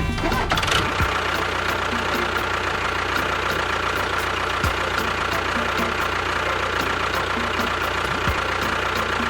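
An engine-like motor running steadily at idle, with a constant whine and faint regular ticking.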